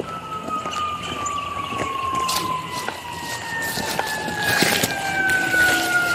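Emergency vehicle siren wailing, its pitch falling slowly through one long sweep, with scattered knocks and rustles.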